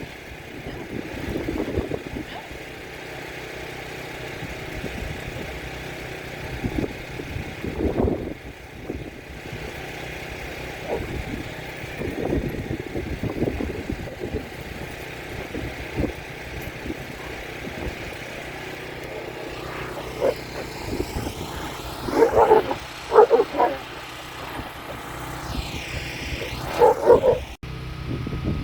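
Five-week-old Kangal x Irish Wolfhound puppies barking now and then over a steady background rumble, with a cluster of short, louder barks near the end.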